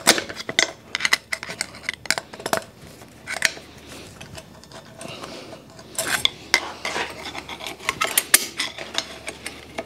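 Wrench working the nut off the exhaust up-pipe clamp on a 7.3 Powerstroke diesel: irregular metallic clicks and clinks in short clusters, tool against steel.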